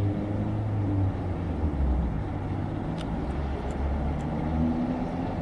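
Class 47 diesel locomotive's Sulzer V12 engine working hard, exhaust smoking, a steady low drone. A few faint high ticks come about three to four seconds in.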